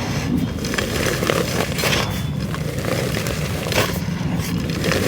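Clumps of dirt being crumbled, breaking apart with irregular crunches and crackles.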